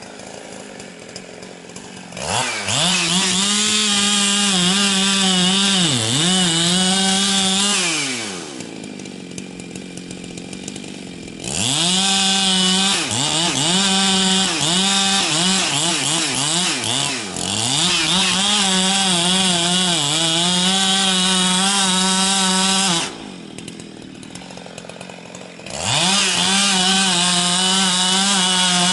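Husqvarna 365 two-stroke chainsaw revved to full throttle and cutting wood in three long runs, its pitch dipping under load, with short drops back to idle between runs.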